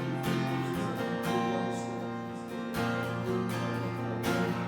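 Acoustic guitar strumming chords in a slow worship accompaniment.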